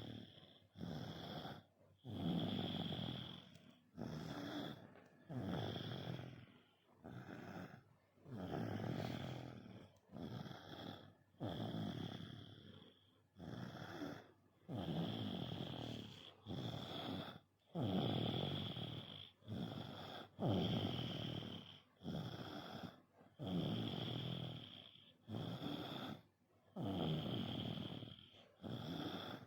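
A sleeping person snoring heavily and rhythmically, about one snoring breath a second, often in pairs, with a thin high whistle in many of the breaths.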